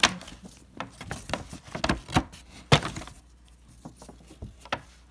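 Brown kraft paper shopping bag rustling and crackling as it is handled, in a quick run of sharp crinkles and knocks over the first three seconds, with two louder cracks at the start and about two-thirds of the way through, then only a few scattered ticks.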